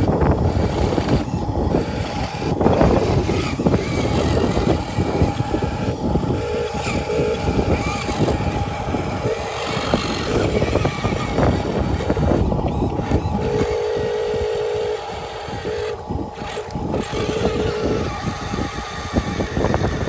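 Remote-control dump truck's electric drive motor and gearbox running steadily with a thin whine as the loaded truck drives along, over a low rumble of its wheels.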